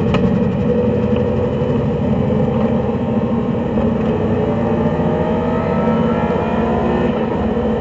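Race car engine heard from inside the cabin, running hard through a corner with a single sharp click near the start. Its note climbs over the last few seconds as the car accelerates out of the bend.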